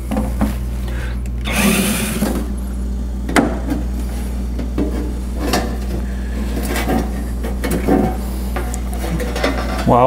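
Sheet-metal fridge kick panel clattering and scraping as it is unscrewed and pulled away, over the steady low hum of the running refrigerator compressor and condenser fan. A short whir from a cordless driver about two seconds in.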